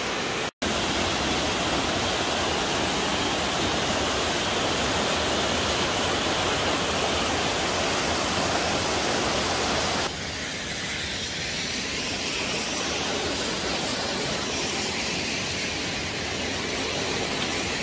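Steady rushing of a waterfall, an even hiss. It drops out for a split second near the start, and about ten seconds in it changes abruptly to a thinner sound.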